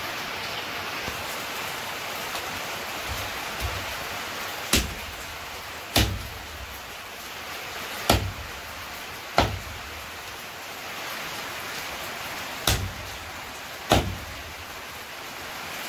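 A heavy cleaver chopping goat meat on a chopping block: six sharp chops, a second or two apart, with a couple of lighter knocks before them. A steady hiss of heavy rain runs underneath.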